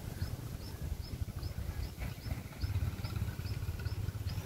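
Short high chirps from a small creature, repeating evenly about two and a half times a second, over a low rumble.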